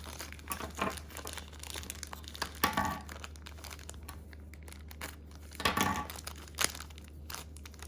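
Packaging crinkling and tearing as it is handled and pulled open by hand, in irregular crackles with louder rustles about three and six seconds in.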